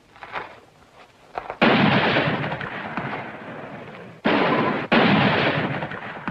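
Three gunshots, each ringing out with a long echoing decay: one about a second and a half in, then two more half a second apart some three seconds later.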